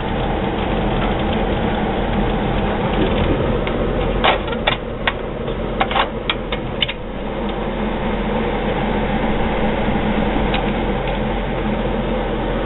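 General Electric room air conditioner running with a steady mechanical hum and fan noise. A cluster of about eight sharp clicks comes about four to seven seconds in.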